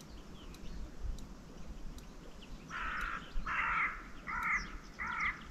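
A bird calling four times in quick succession in the second half, each call short and rough.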